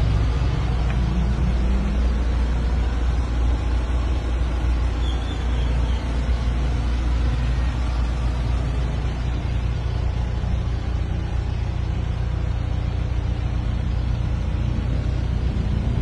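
Isuzu Elf minibus's diesel engine running with a steady low rumble.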